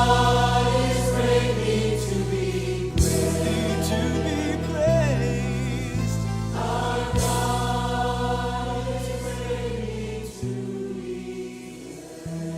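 Choir singing a gospel worship song with instrumental accompaniment, in long held chords over a steady bass line. The music grows gradually quieter toward the end.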